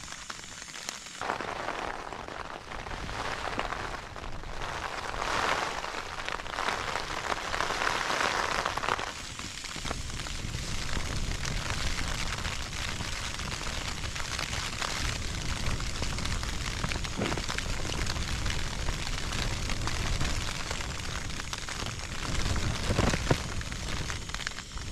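Rain drumming on the tent fly. From about ten seconds in, the steady low roar of a backpacking gas canister stove burning under a cook cup joins it.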